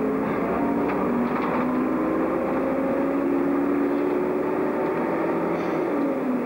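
City bus's diesel engine running as the bus drives along the road, heard from inside the driver's cab; its pitch climbs slowly as it picks up speed, over steady road noise.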